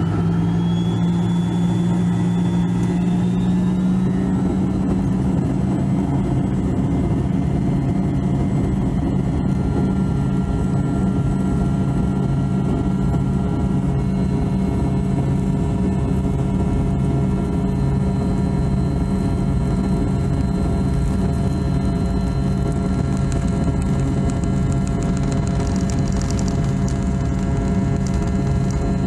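Cabin sound of a DC-9-14's rear-mounted Pratt & Whitney JT8D turbofan engines running steadily at taxi power: a heavy low hum with a steady whine on top. Near the end light rattling comes through as the aircraft rolls over rough, potholed pavement.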